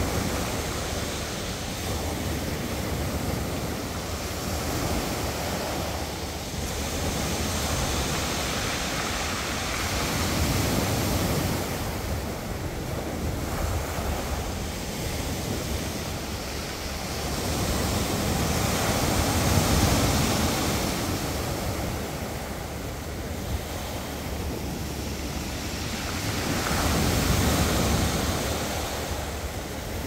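Sea waves surging up a beach and washing back, rising and falling in slow swells with three bigger surges. A low rumble of wind on the microphone runs under it.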